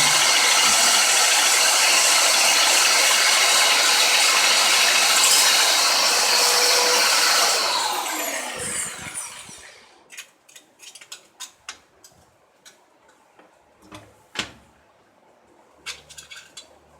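A power tool running at full speed with a high, steady whine, then released about 7.5 seconds in and spinning down with a falling pitch. After it stops come scattered light clicks and taps.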